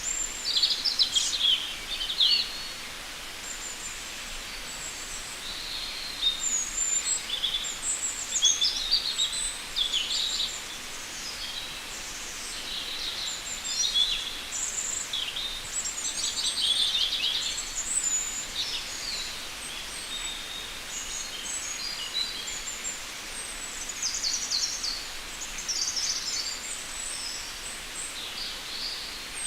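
Forest birdsong: several birds singing and chirping in overlapping high-pitched phrases and quick trills, over a steady faint hiss of forest ambience.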